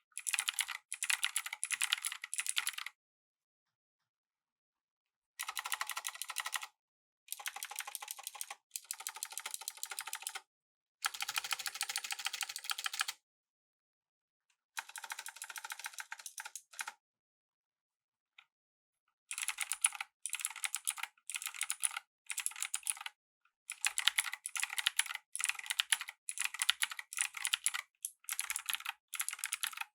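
Typing on a Razer BlackWidow V3 Pro mechanical keyboard with Razer Green clicky switches, sharp key clicks in quick runs. The typing comes in bursts of a second or two, broken by several dead-silent pauses in the first half, then runs on more steadily from about two-thirds of the way in.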